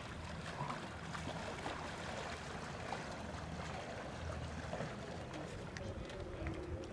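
Steady outdoor wind and water noise with a low rumble underneath, and a few light clicks near the end.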